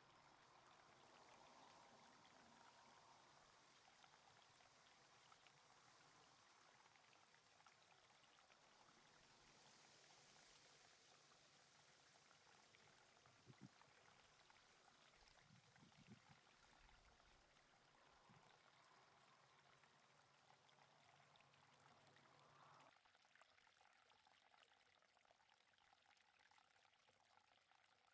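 Near silence: a faint steady hiss, with two faint low thumps around the middle and a faint low hum that drops away near the end.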